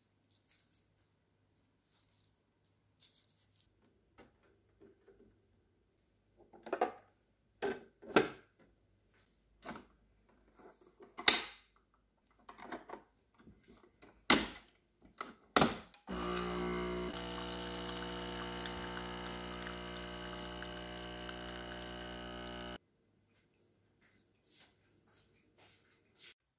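Knocks and clicks of things being handled and set down, then a capsule coffee machine's pump running with a steady hum for about six and a half seconds before cutting off suddenly, a few faint clicks after.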